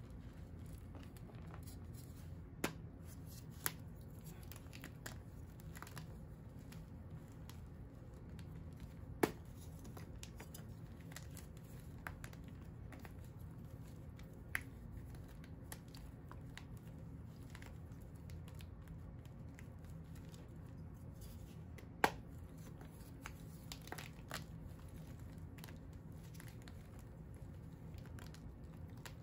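Hands crumbling and crushing pieces of dyed, dried chalk blocks in a plastic tub of powder: soft crunching with scattered sharp snaps as pieces break, the loudest about twenty-two seconds in, over a steady low hum.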